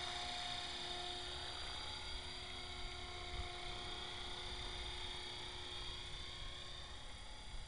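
Electric EXI 450 Pro RC helicopter, an Align T-Rex 450 Pro clone, in low forward flight: a steady high-pitched whine from its brushless motor and spinning rotors, easing slightly near the end as it moves off.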